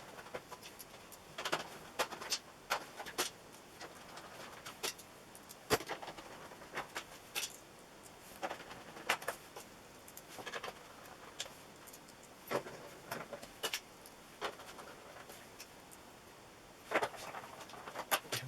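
Irregular light clicks and taps of a screwdriver and small screws as the plastic back cover of an LCD TV is screwed back on.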